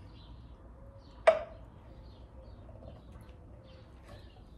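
Metal cup-pull hardware and its screws being handled and fitted to a painted wooden drawer front: one sharp clack about a second in, then faint small clicks and scrapes.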